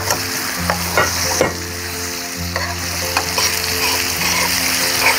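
Food sizzling and frying in a pan while it is stirred, with the utensil scraping and knocking against the pan a handful of times.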